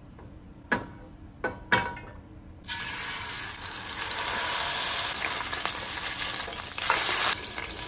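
A few sharp clicks, then from almost three seconds in ground-beef burger patties sizzling steadily in hot oil in a stainless steel skillet, briefly louder near the end.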